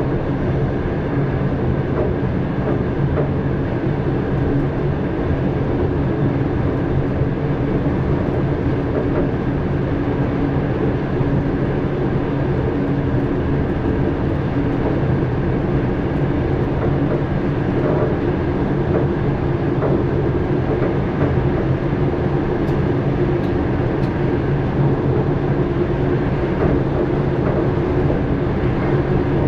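Dutch NS passenger train running steadily along the line, heard from the driver's cab: a continuous rumble of wheels on rail under a steady motor hum.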